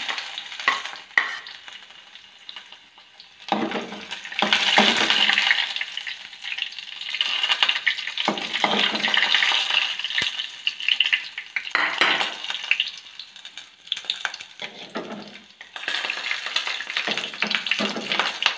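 Chopped ginger and garlic sizzling in hot coconut oil in a metal pot, stirred with a steel spoon that scrapes and clicks against the pot. The sizzle swells and fades as the spoon moves them around.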